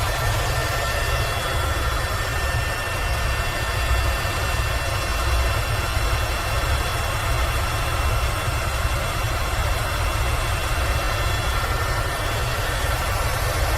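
Airbus H130 (EcoStar) helicopter in cruise flight, heard on board: a steady low rotor beat under the constant high whine of its turboshaft engine.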